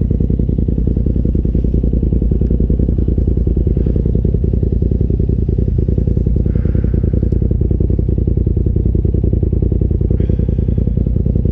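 Polaris RZR side-by-side engine idling steadily, a low, even running sound with a fast regular pulse.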